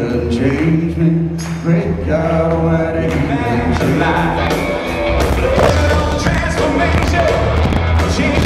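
Live band playing with male vocals, heard from the seats of a large hall. The drums and bass fill out partway through, from about three seconds in.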